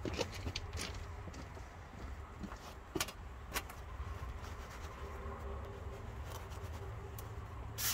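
Cutting torch burning through steel flat bar: a steady low rush with scattered sharp pops and crackles, the strongest near the end.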